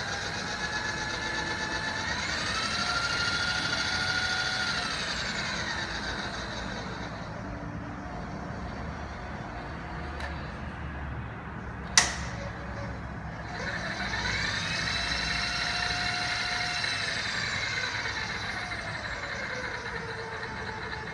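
Sharp LMV-50 vertical milling machine's spindle run under power: a whine rises to speed, holds, then winds down, and the cycle happens twice. A sharp click, the loudest sound, comes about halfway, between the two runs.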